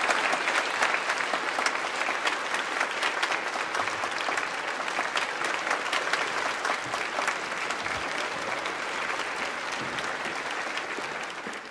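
An audience applauding: many hands clapping together, dying away near the end.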